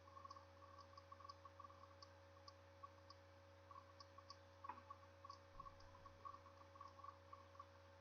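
Near silence: faint room tone with a steady low hum and scattered faint light clicks.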